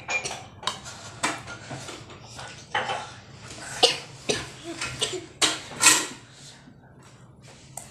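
Metal spoon clinking and scraping against ceramic bowls of soup and rice, a run of irregular sharp clinks, the loudest about four and six seconds in.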